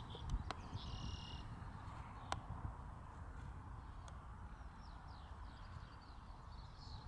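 Faint outdoor background: a steady low rumble like wind on the microphone, with a short high chirp about a second in and a run of small bird-like chirps in the second half.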